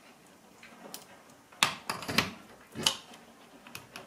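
Handling noise of test-lead plugs being moved and pushed into a breadboard and a wall socket: a scatter of short clicks and knocks, with three louder ones between about one and a half and three seconds in.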